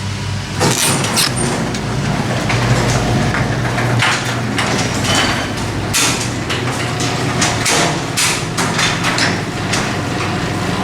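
Electric garage door opener running as the door closes: a steady motor hum with repeated clicks and knocks from the door as it travels down.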